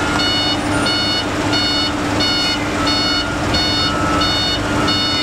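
Truck reversing alarm beeping steadily, about two beeps a second, over the low hum of a diesel engine running.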